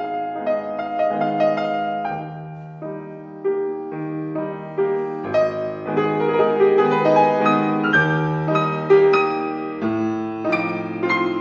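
Piano music: a steady flow of single notes over held low bass notes.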